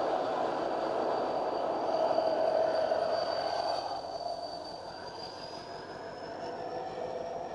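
Train rolling along the track: a steady rumble of the cars with a thin high whine above it, the rumble easing off about halfway through.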